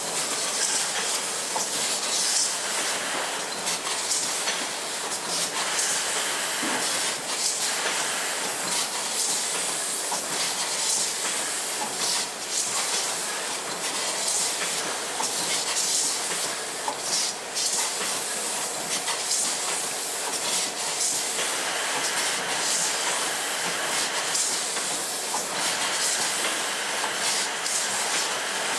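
Ramune bottling-line machinery running: a steady hiss with a constant rattle of clicks and clatter.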